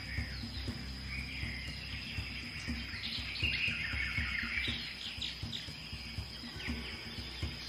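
Birds chirping and trilling in a rainforest ambience, over soft ambient music with low, gently tapping notes and a steady high tone.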